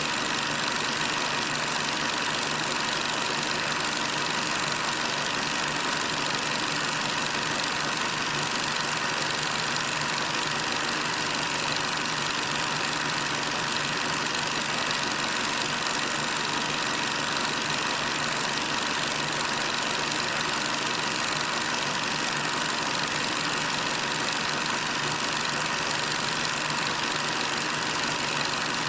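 Steady, unchanging engine noise of armoured vehicles driving past, mixed with a strong even hiss.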